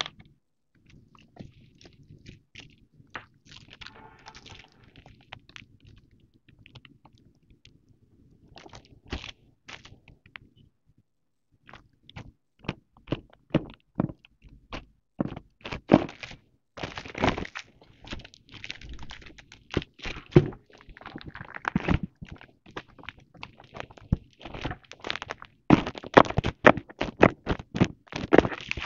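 Crinkling and crackling of metallic foil gift wrap as hands handle and press on the wrapped box. It starts sparse and faint, then turns denser and louder in the second half.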